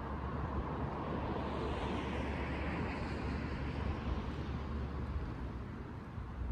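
Outdoor background noise: a low wind rumble on the microphone under a broad hiss that swells a couple of seconds in and fades near the end.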